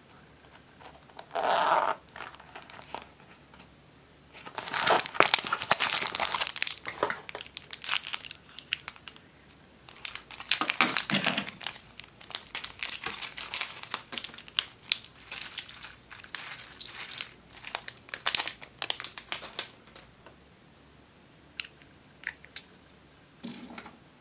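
Crinkling of a thin plastic packet of holographic star confetti as it is handled and opened, in dense crackling stretches over about fifteen seconds. A few sharp light clicks come near the end.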